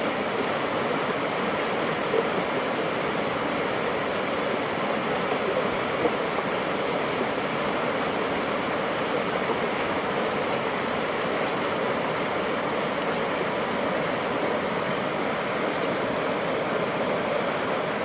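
Muddy water pouring out through the arched culverts of a concrete spillway and churning downstream: a steady, unbroken rush of water.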